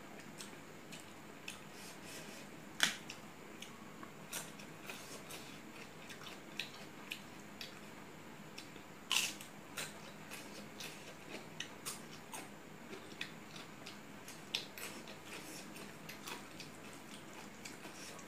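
Close-up eating sounds: irregular wet clicks and smacks of chewing rice and mixing it by hand, with two louder clicks about three and nine seconds in.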